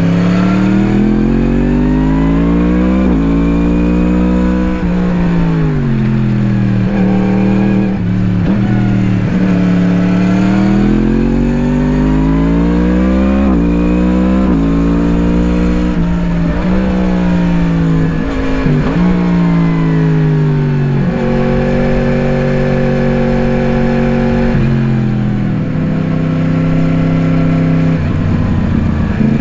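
2017 Yamaha MT-10's crossplane inline-four through an Akrapovič slip-on exhaust, heard on board under way. The engine rises and falls in pitch again and again as it is opened and closed, with sudden breaks between the climbs. It holds a steady note for a few seconds near the end, then picks up again.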